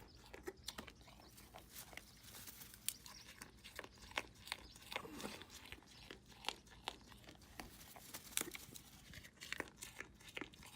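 Faint, irregular crunching and clicking of an animal chewing food close to the microphone.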